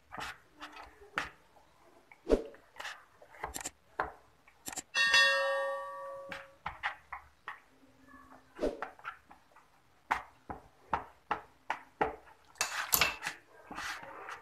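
Kitchen knife clicking and tapping against a plastic bowl as slits are cut into raw chicken breast, in a string of short irregular knocks. About five seconds in, a bell-like chime sound effect rings for a second or so and is the loudest sound.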